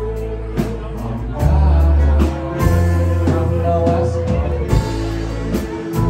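Live band playing a song: singing with harmony voices over acoustic guitars, keys, electric bass and drums.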